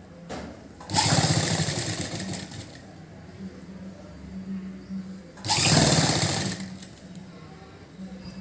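Sewing machine stitching a sleeve seam in two short runs, one about a second in and another around five and a half seconds in, each fading off as the machine slows.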